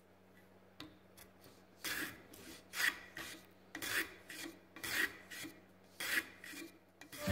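Hand plane shaving a strip of wood clamped in a vise: a series of scraping strokes, about one a second, with smaller strokes in between. A faint low hum runs underneath.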